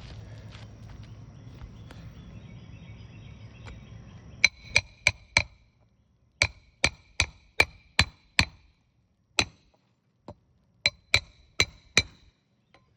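Hammer driving roofing nails into asphalt shingles. Several quick runs of sharp strikes, about three a second, each with a short metallic ring, starting about four and a half seconds in.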